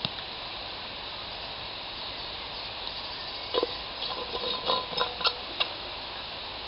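A lidded pot of greens in butter and water simmering on a campfire with a steady sizzling hiss. About three and a half seconds in, a run of light metallic clinks and taps follows as the metal flask is handled, ending a little before the close.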